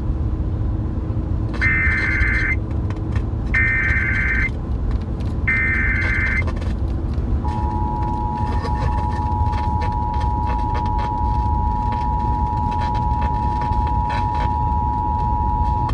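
Emergency Alert System activation on a car radio: three short bursts of buzzing digital header tones about two seconds apart, then the steady two-tone attention signal from about halfway in. Together they open an alert for a flash flood warning. Road noise from the moving car runs underneath.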